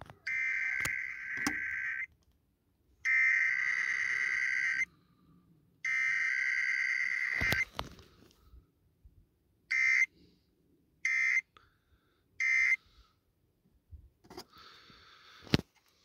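Emergency Alert System SAME digital data bursts for a Required Weekly Test, from an FM broadcast played through a phone's speaker. There are three buzzing header bursts of under two seconds each, about a second apart, and then three short end-of-message bursts, with no attention tone between them.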